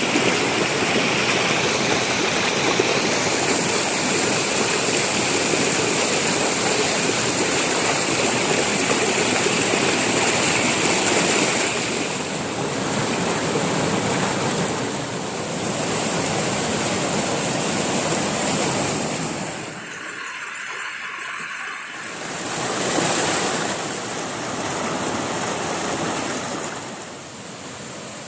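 Waterfall and stream water rushing, a steady loud rush that briefly drops away for a couple of seconds about twenty seconds in.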